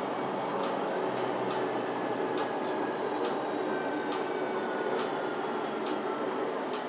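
Ride noise inside a moving city bus: steady engine and road noise, with a faint whine slowly falling in pitch and a light tick repeating a bit more than once a second.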